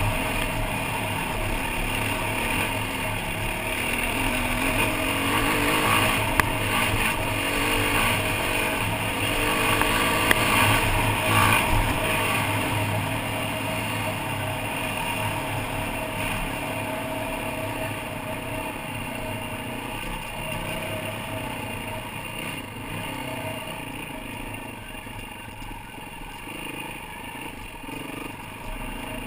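Yamaha WR450F dirt bike engine running under way on a dirt trail, the throttle rising and falling. There are a couple of sharp knocks in the first half, and the engine gets gradually quieter over the second half.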